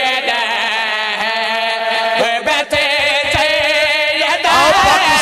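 A man's voice chanting a devotional verse in long, wavering held notes through a public-address microphone. It grows louder and busier about four and a half seconds in.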